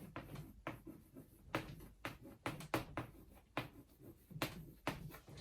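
Handwriting on a board: a series of short, irregular writing strokes.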